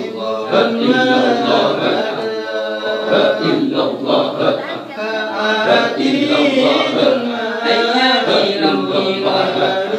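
A group of men chanting Samman dhikr together with no instruments. The voices move up and down in a continuous melodic chant.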